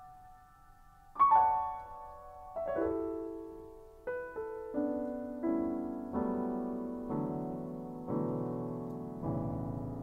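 Instrumental piano music: after a fading chord, notes and chords are struck about once a second in a slow descending line, each ringing and dying away.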